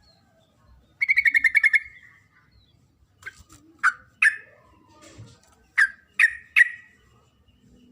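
Sooty-headed bulbul (trucuk) calling: a quick chattering run of notes, then about five short, sharp down-slurred calls. This is a call the uploader takes for a female calling to the male.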